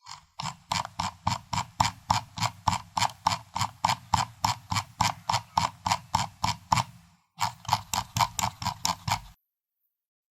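Computer mouse scroll wheel turning notch by notch: a steady run of clicks, about four or five a second, with a short break about seven seconds in, then more clicks that stop about a second before the end.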